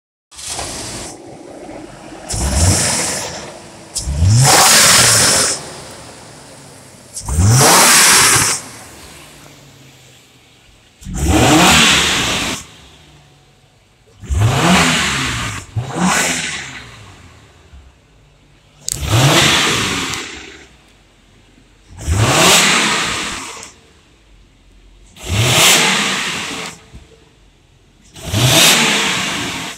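2007 Hummer H3's 3.7-litre inline-five engine idling and being revved repeatedly, about nine throttle blips roughly every three seconds, each rising in pitch and falling back to idle. It is an engine test of a wrecked vehicle's engine, which the wrecker rates as tested good.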